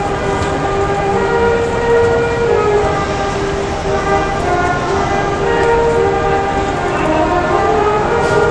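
School band horn section of trombones and trumpets playing a melody in held chords, each note sustained for about half a second to a second before moving on.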